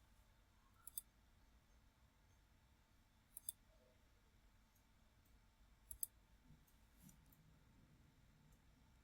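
Computer mouse clicking in quick pairs three times, like double-clicks, against near-silent room tone.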